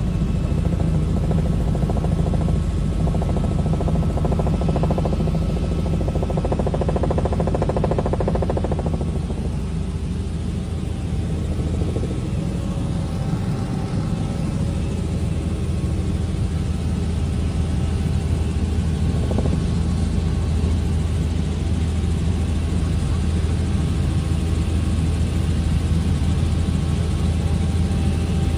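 A motor vehicle running steadily, a low engine hum with road noise.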